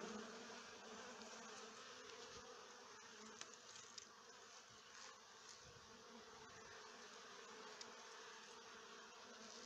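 Honeybee colony humming faintly and steadily, a large cluster of bees on exposed comb.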